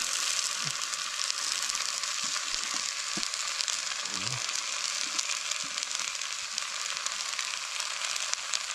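Food sizzling in a hot cast-iron Dutch oven, a steady hiss with fine crackles, as sliced vegetables are scraped in from a cutting board.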